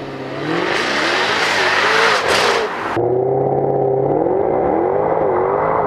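2015 Jaguar F-Type Coupe's engine and sport exhaust accelerating, rising in pitch, with the active exhaust opened by its button. About halfway through the sound changes suddenly to a steadier, duller engine note at speed.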